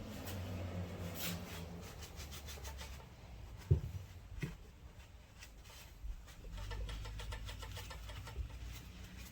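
Bench work on metal parts: a run of light clicks and rubbing, with two sharper knocks about four seconds in, over a low steady hum.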